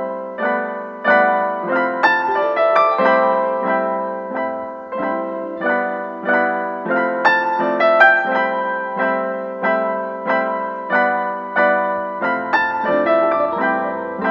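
Background piano music: a steady run of struck notes, each ringing and fading.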